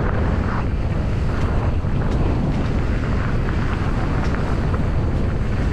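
Wind buffeting the microphone of a point-of-view camera on a mountain bike riding downhill, a steady low rush with scattered short clicks and rattles from the bike over the trail.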